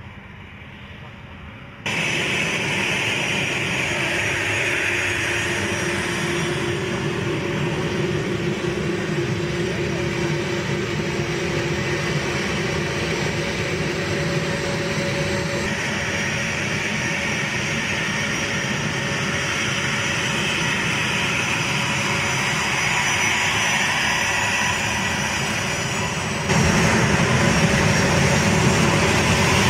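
A-10C Thunderbolt II's twin TF34 turbofan engines running on the ground as the jet rolls and taxis, a steady whine over a rushing roar. The sound jumps suddenly louder about two seconds in and again near the end.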